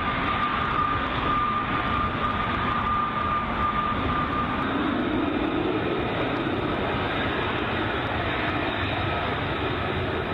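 F-35 Lightning II fighters' single turbofan jet engines running as the jets taxi: a steady, loud rush of jet noise with a high whine that fades out a little before halfway and comes back faintly near the end.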